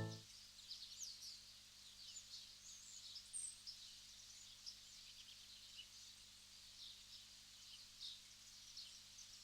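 Faint, scattered high chirps and twitters of small birds against quiet outdoor background, after background music cuts off at the very start.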